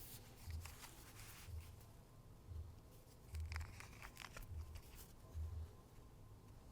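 Faint scattered clicks and light rustling, with a soft low thud about once a second underneath.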